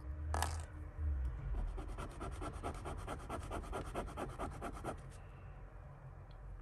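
A piece of jewellery rubbed quickly back and forth on a touchstone to test its metal: a rapid, even scratching of about eight strokes a second that lasts some three seconds, after a single knock near the start.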